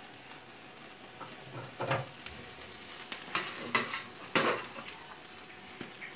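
Chicken pieces sizzling on a wire grill rack over an open flame, with several sharp metal clinks and knocks around the middle.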